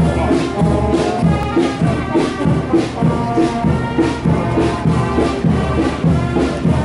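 Marching band music with brass and percussion playing a march, its beat steady at about two strokes a second.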